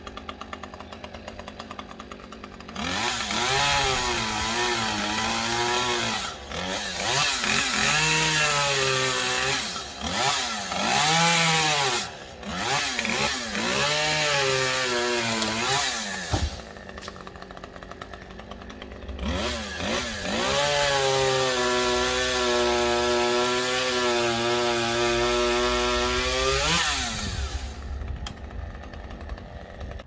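Two-stroke chainsaw idling, then revved up and down in repeated bursts, back to idle, then held at high speed for several seconds before dropping back and dying down near the end.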